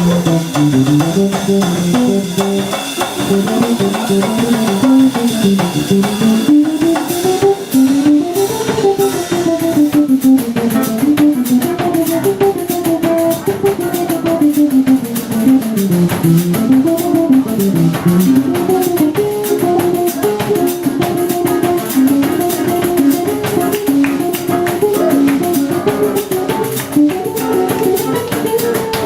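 Instrumental music: a guitar playing quick melodic runs that climb and fall, over drums and bass.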